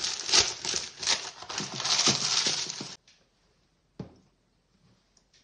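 Baking paper crinkling and rustling as it is pressed and smoothed into a baking dish, stopping abruptly about three seconds in. A single short knock follows about a second later.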